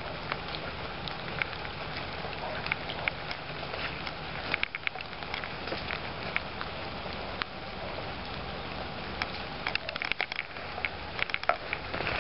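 Steady outdoor hiss scattered with light ticks and crackles, coming in short flurries about four and a half seconds in and again near the end.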